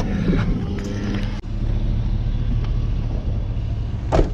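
A vehicle running with a steady low drone, and one short sharp sound near the end.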